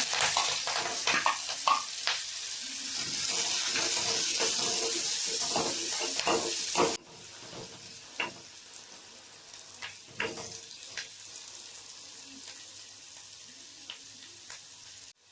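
Chopped onion, green chillies and curry leaves sizzling in hot oil with tempering seeds, stirred with a spatula that clicks and scrapes against the pan. The sizzle is loud at first, then drops abruptly about halfway through to a quieter sizzle with occasional spatula taps.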